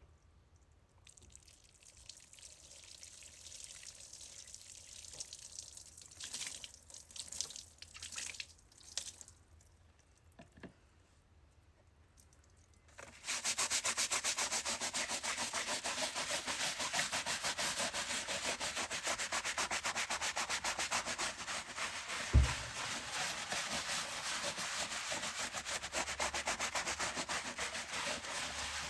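A brush scrubbing a chair: a few faint strokes at first, then from about halfway a loud, steady, rapid scrubbing that carries on to the end, with a single low thump a little after that.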